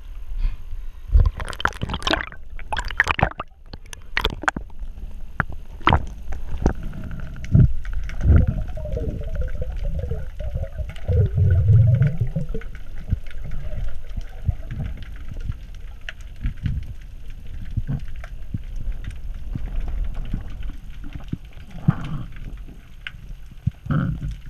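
Water sloshing and gurgling with scattered knocks and splashes, heard muffled through a GoPro's underwater housing while snorkel spearfishing.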